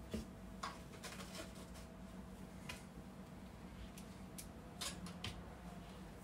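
Faint, scattered clicks and taps of hands handling laptop parts and small tools, about half a dozen over several seconds, over a low steady hum.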